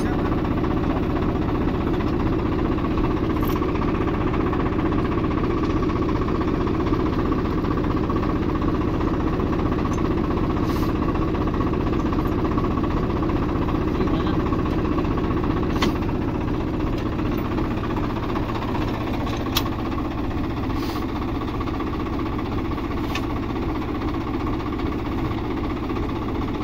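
Swaraj 744 XT tractor's diesel engine idling steadily, with a few light sharp clicks scattered over it.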